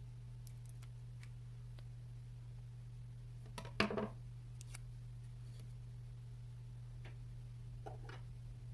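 Small scissors snipping a thin strip of tape: scattered light clicks, one louder crunchy cut about four seconds in, and a couple of small ticks near the end, over a steady low hum.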